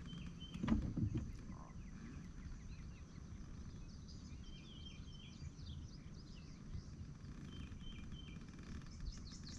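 Songbirds chirping in short repeated phrases over low, steady outdoor background noise, with one thump a little under a second in.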